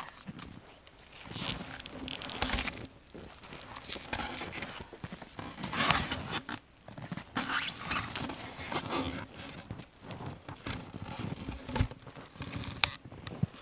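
Irregular handling noises at an uneven pace: crunches, scrapes and a few knocks from someone moving about and handling gear, with no steady sound underneath.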